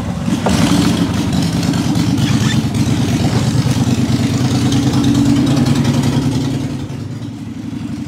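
Small boat's engine running steadily under way, with water rushing and splashing from the wake along the hull.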